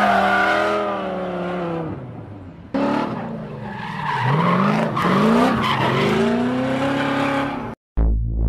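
Racing car engines revving hard with tyres squealing, cut together in short pieces: first an engine whose pitch falls away, then a run of quick rising revs. Near the end it cuts off and a low electronic music tone begins.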